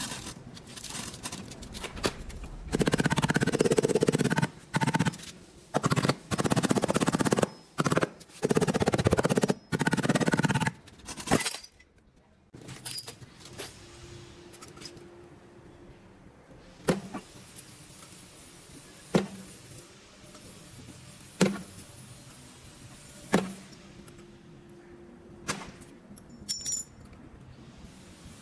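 Workshop tool noise in loud on-off bursts for about eleven seconds, then a quieter stretch with sharp clicks or taps about every two seconds.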